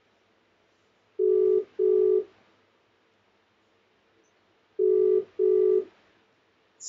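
Outgoing ringback tone of a smartphone video call while the other phone rings. It is a pair of short, steady beeps, heard about a second in and again about three and a half seconds later.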